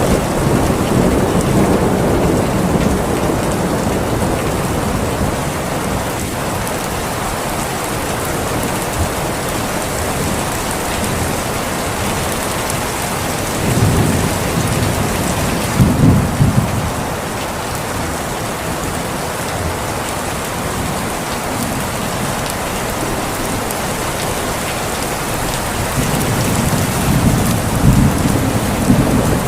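Steady, fairly loud rain falling, with low rumbles of thunder swelling at the start, about halfway through, and again near the end.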